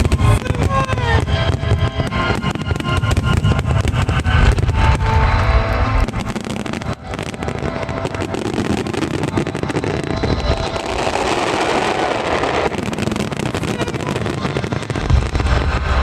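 Fireworks bursting with dense low booms over music during a musical fireworks display. About seven seconds in the booms drop away, leaving the music and a steady hiss.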